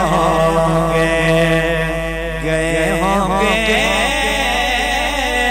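Naat being sung: a male voice holding long, wavering melismatic notes over a steady low hum, between the sung lines of the verse.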